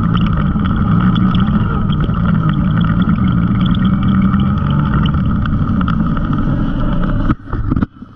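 Side-by-side UTV engine running steadily as it drives along a rocky dirt trail, with tyre and gravel noise mixed in. The sound cuts off abruptly about seven seconds in.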